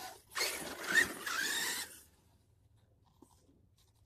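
Radio-controlled truck driving over dirt and grass: a hiss of tyres and motor with a short rising whine about a second in, cutting off suddenly after about two seconds.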